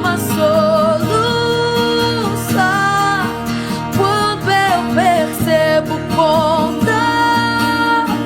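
Worship song: a singing voice holding long, wavering notes over strummed acoustic guitar.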